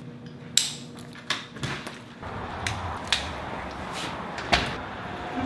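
A scattered series of sharp clicks and knocks as a dog's harness and leash clip are handled and a front door is pulled shut. A steadier background noise comes in about two seconds in.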